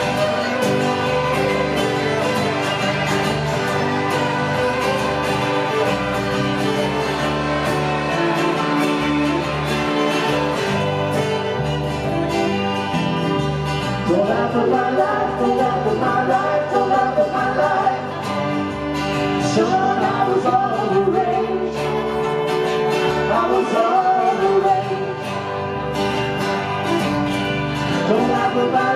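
A live band playing amplified guitar music, electric and acoustic guitars over a bass line; vocals come in about halfway through and carry on to the end.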